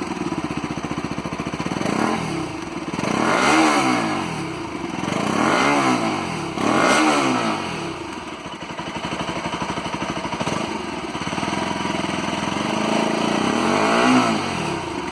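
Bajaj RS200's single-cylinder engine idling through its exhaust, blipped up and back down four times in the first seven seconds and once more near the end.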